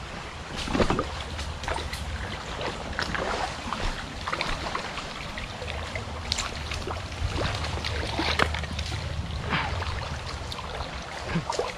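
Fast, shallow creek water running over rocks, with scattered short splashes and knocks as a hooked brown trout is played and brought to a landing net.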